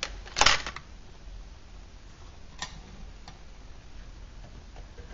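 A short knock about half a second in, then a sharp click and a few fainter scattered ticks over a low steady hum.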